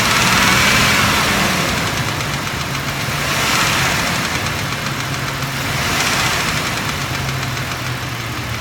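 2006 Mitsubishi Raider's 3.7-litre V6 idling, with a lifter tapping from the right-hand side of the engine. The owner takes the tap for a bad hydraulic lifter that is not pumping up, still there after lifters were replaced.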